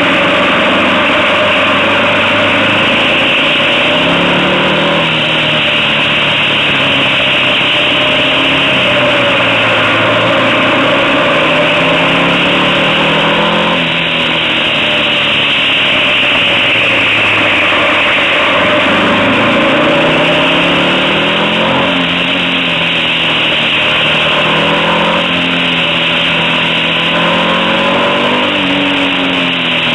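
Motorcycle engine pulling uphill, its pitch rising and falling again and again as the rider accelerates, shifts and eases off for the bends. A heavy rush of wind noise on the microphone runs under it.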